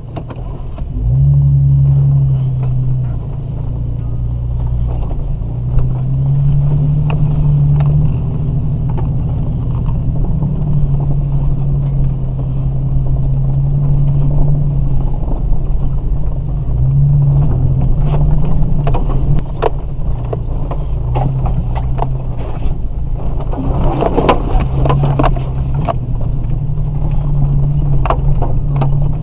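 Off-road vehicle's engine heard from inside the cab, droning low and rising and falling in pitch with the throttle as it drives a rough, muddy trail. Knocks and rattles from the bumpy ride come thicker in the second half, with a louder rushing burst about 24 seconds in.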